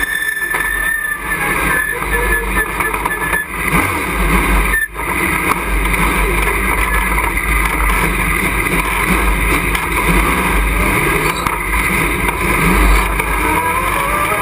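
Race truck engine running under way, heard from inside the cockpit, loud and continuous with road and wind noise. It dips briefly about five seconds in, and a faint rising whine near the end marks the engine picking up revs.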